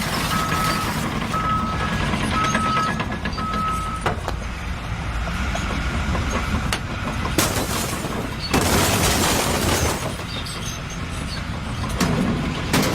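Heavy truck engine running with its reversing alarm beeping about once a second, the beeping stopping about four seconds in; a loud hiss lasting about a second and a half comes near the middle.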